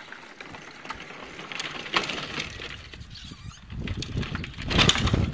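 A child's plastic pedal tractor rolling over brick paving, its hard wheels rattling and clattering. It grows louder as it passes close by, loudest about five seconds in.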